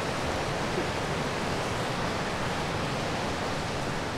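Steady rushing of a mountain trout creek's flowing water, an even unbroken wash of noise.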